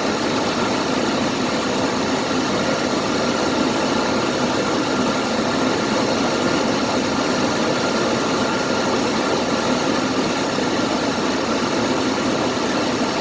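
Engine idling steadily, just started and not yet warmed up, with a faint steady high tone over it. The vehicle's alternator is failing, letting the charging voltage sag as it runs.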